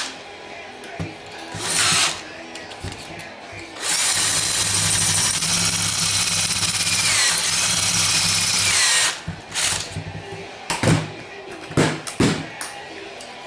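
Electric drill running steadily for about five seconds, boring into an aluminium Powerglide pump cover to break through into an intersecting oil passage. Short bursts and sharp knocks come before and after the long run.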